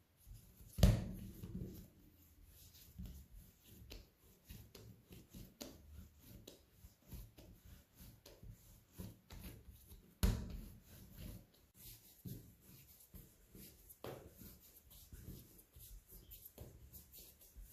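Yeast dough being kneaded by hand on a floured stainless steel worktop: soft rubbing and irregular light taps as it is pressed, rolled and folded, with two heavier thumps, about a second in and about ten seconds in.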